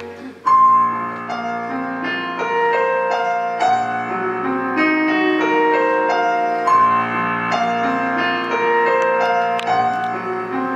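Piano playing a slow, repeating broken-chord figure, starting about half a second in as a held orchestral chord dies away: the opening of a ballad, played live.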